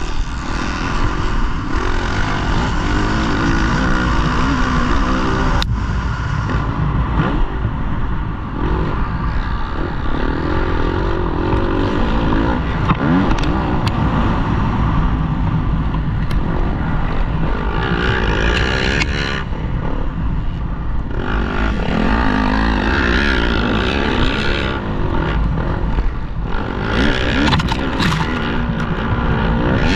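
Motocross bike engine heard up close from the rider's own bike, revving up and down hard through the gears while it is ridden around a dirt track, with a few sharp ticks along the way.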